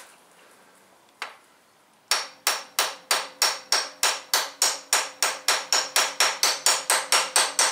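Hammer striking a socket used as a driver to seat a pilot bearing into the end of an LS crankshaft. One tap comes about a second in, then steady quick blows, nearly four a second, each with a metallic ring.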